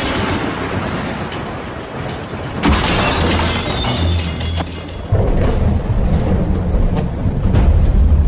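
Rumbling, crashing thunder-like sound design over a deep low drone, with sudden loud hits about two and a half and five seconds in.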